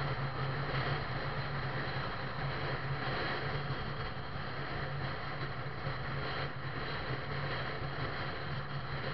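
Steady drone of a vehicle's engine with tyre and road noise while driving, heard from inside the vehicle.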